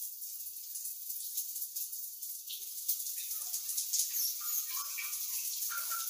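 Shower running: a steady hiss of falling spray, with uneven splashing from about three seconds in.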